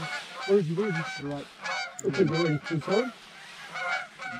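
A flock of Canada geese honking in flight, many deep honks and higher calls overlapping. The calling thins briefly about three seconds in.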